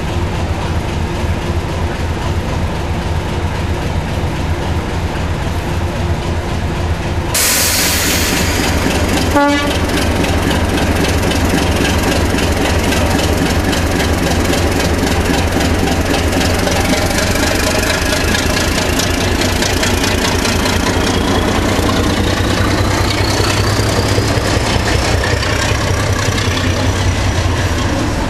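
Class 37 diesel locomotive's engine running with a steady low throb, then powering up, with a whine that climbs steadily in pitch through the second half. About seven seconds in there is a sudden loud hiss lasting about a second, followed shortly by a single knock.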